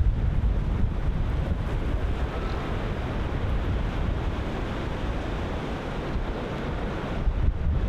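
Ocean surf breaking in a steady wash, with wind buffeting the microphone in a low rumble that gusts stronger near the end.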